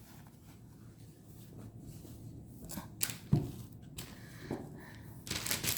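Hands laying out a tarot cloth and cards: soft handling noises with a few light taps, and a brief louder rustle near the end.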